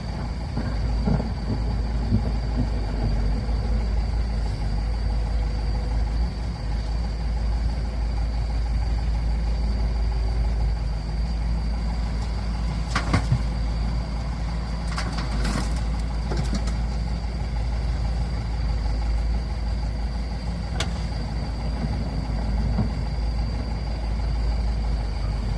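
Engines of excavators and trucks running steadily, a continuous low rumble, with a few sharp knocks about halfway through.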